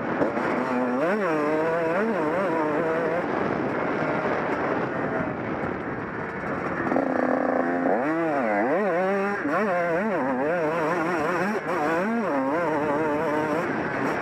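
Honda CR125 two-stroke single-cylinder engine ridden hard, revving up and down in quick rising sweeps about once a second, with one briefly held note about halfway through, over a steady rush of wind and track noise.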